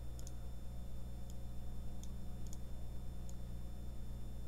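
Several faint computer mouse clicks at irregular intervals, some in quick pairs, over a steady low hum.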